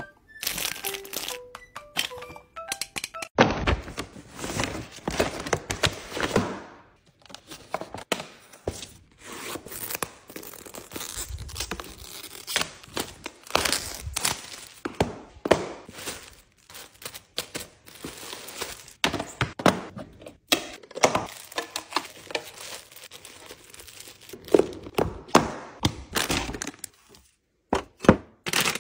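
Unboxing and handling sounds: plastic packaging crinkling and tearing, with many irregular taps, clacks and thunks of small plastic items and boxes set down and handled.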